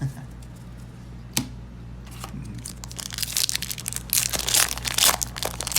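Foil booster-pack wrapper being crinkled and torn open: one sharp click about a second and a half in, then a dense run of crackly rustling and tearing through the second half.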